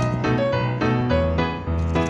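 Background music: a piano or keyboard tune over a steady bass line.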